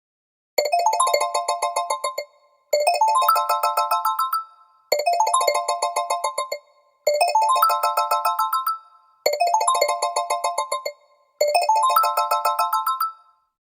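Firefox OS (Boot2Gecko) ringtone played on a Xiaomi Redmi 9: a short run of quick keyboard-like notes stepping upward in pitch. The phrase repeats six times, about every two seconds.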